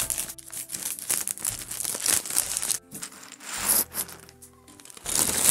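Thin plastic parts bag crinkling and rustling as it is snipped open with scissors and handled, full of LEGO Technic pieces; it eases off for a moment past the middle, then crinkles loudly again near the end. Soft background music runs underneath.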